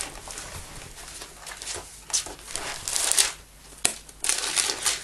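Paper reproductions rustling and crinkling as they are handled and drawn out of a book's pockets, in uneven bursts with one sharp click just under four seconds in.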